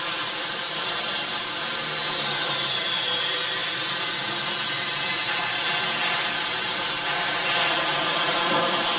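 Steady machine noise like a power tool running, an even drone with many fixed tones that holds at one level throughout.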